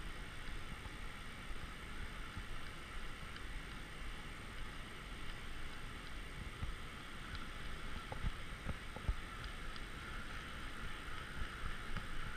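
Steady rush of river water pouring over a low dam, with a few faint low knocks around the middle.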